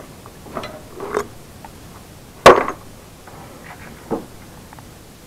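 A plastic bucket of scrap metal-cased electronic parts being handled and set down: a few light clinks and knocks of the parts shifting, with one sharp knock about two and a half seconds in and another smaller one near the end.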